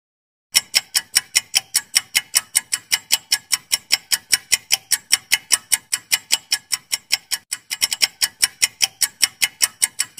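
Clock-ticking sound effect for a quiz answer timer: sharp, even ticks about five a second, starting about half a second in, with a brief stumble in the rhythm about eight seconds in.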